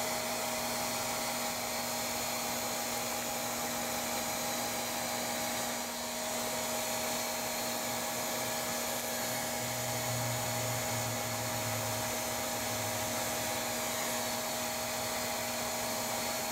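Bee vacuum running steadily: an electric motor's even whine over a rush of air.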